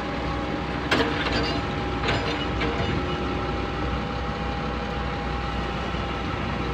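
Diesel engines of a crawler excavator and a wheel loader running steadily, with a thin steady whine over the low rumble. A couple of short knocks come about one and two seconds in.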